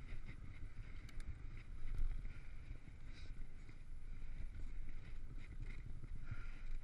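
Mountain bike rolling over a dirt trail: an uneven low rumble of tyres and wind buffeting the microphone, with a few small rattling clicks from the bike about a second in.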